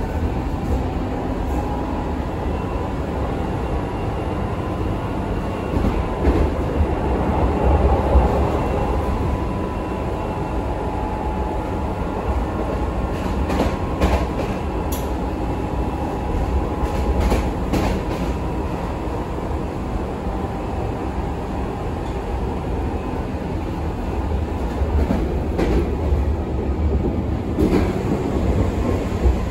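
Berlin U-Bahn F90 train running between stations, heard from inside the car: a steady low rumble of wheels on track with a steady whine from its three-phase AC traction drive. Clicks from the track come in a cluster in the middle and again near the end.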